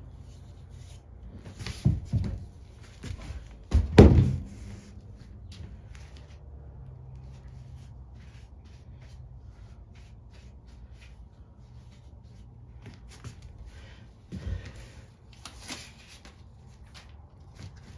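A cover being fitted back onto a Briggs & Stratton mower engine by hand: a few knocks and clunks, the loudest about four seconds in and another thump about fourteen seconds in, with light handling clicks between.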